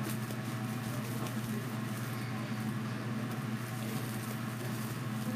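A steady low hum runs through, with faint rustling and a few light ticks as ribbon and foil deco mesh are handled while a ribbon pinwheel is tied onto a wreath.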